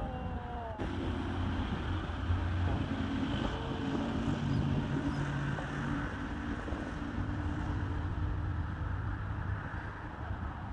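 A steady low rumble with a faint hum, from a running motor, under a hiss of wind on the microphone.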